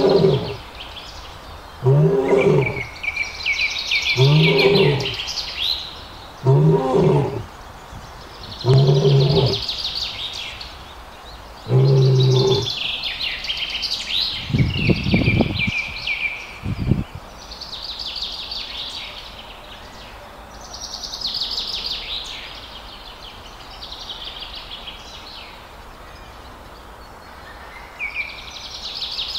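Male lion roaring: a bout of six deep calls about two seconds apart that stops about twelve seconds in, followed by two low thumps. Birds chirp throughout.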